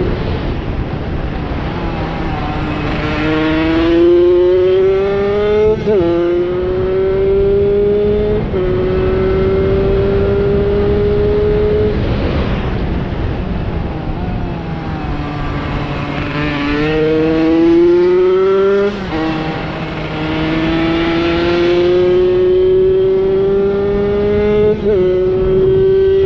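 Tomos two-stroke moped engine racing hard, its pitch climbing steadily and then dropping abruptly at each gear change. About halfway through it eases off and falls in pitch, then accelerates through the gears again.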